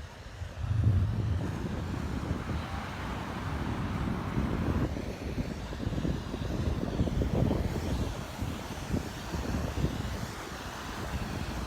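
Wind buffeting the microphone in an uneven low rumble, with surf washing on the beach behind it.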